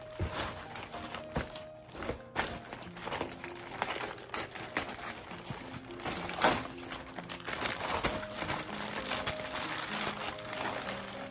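Plastic packaging crinkling and rustling in irregular bursts as a baby bathtub is unwrapped and handled, over background music with held notes.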